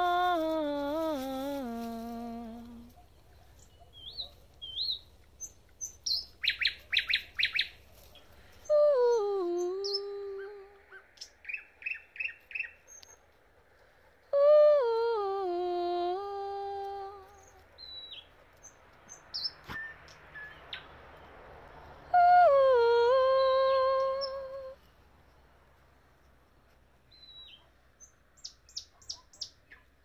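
A woman sings wordless, sliding phrases of two to three seconds each, taking turns with a wild nightingale. She sings at the start and again about 9, 14 and 22 seconds in. Between her phrases the nightingale answers with rapid runs of repeated notes, short high whistles and, near the end, a fast clicking trill.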